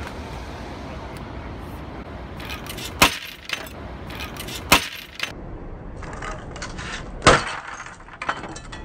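A stemmed balloon cocktail glass breaking on a glass tabletop: three sharp glassy cracks with a short ringing after each, and ice cubes scattering across the table.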